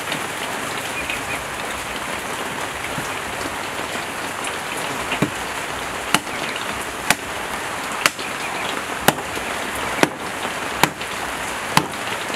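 A large knife chopping into a goat carcass on a wooden table, sharp strokes about once a second, eight times from about five seconds in, over a steady hiss of rain.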